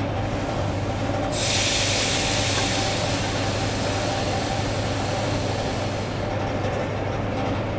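ChS4t electric locomotive moving slowly at a station with a steady electrical hum. About a second in, a loud hiss starts and lasts about five seconds, then dies away.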